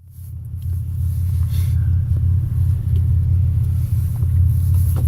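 Steady low rumble that fades in over the first second and then holds, with a few faint clicks over it.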